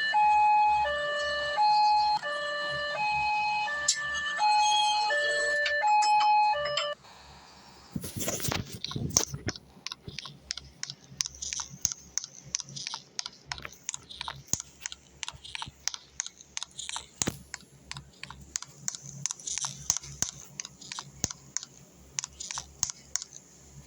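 Small siren sounding a two-tone hi-lo pattern, switching between a higher and a lower pitch about every three-quarters of a second, then cutting off about seven seconds in. After a short pause comes a run of irregular clicks and knocks, like the device being handled.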